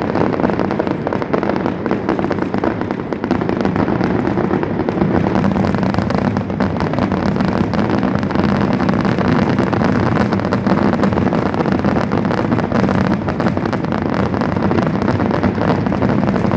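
Fireworks display in full barrage: a dense, continuous run of bursts and crackling with no pauses.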